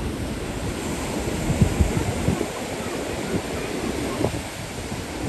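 Ocean surf breaking and washing over a rock platform: a steady rush of white water, with wind buffeting the microphone in low thumps, the strongest a little over a second and a half in.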